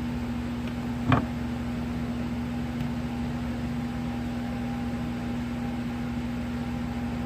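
Steady low electrical hum with a fainter higher tone above it, and one short sound about a second in.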